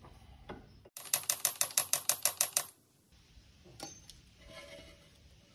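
A hand socket ratchet clicking rapidly, about a dozen sharp metallic clicks at roughly seven a second for under two seconds, as bolts on an excavator track roller are run in. A single faint knock follows a little later.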